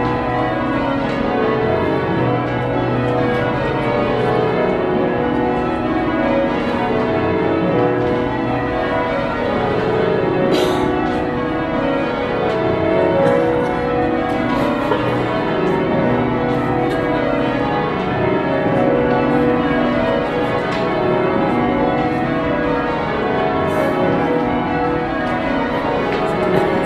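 A cathedral's ring of church bells rung in changes, heard from the ringing chamber beneath the bells: each bell strikes in turn in repeating, evenly paced descending runs of overlapping ringing tones, without a break.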